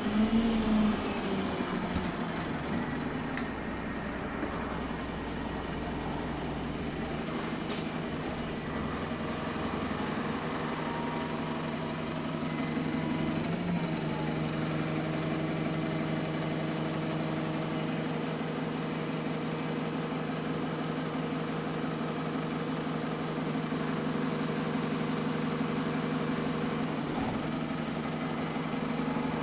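Enviro400 MMC double-decker bus's diesel engine heard from on board, with the turbo whine this bus is known for. The engine note falls at first, then settles into a steady idle about halfway through.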